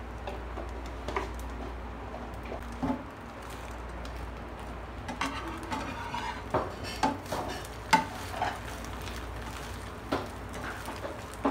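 Metal spatula scraping and clicking against a non-stick frying pan as an omelette is folded and turned, over a light sizzle of frying egg. The scraping starts about halfway through, followed by a string of sharp taps.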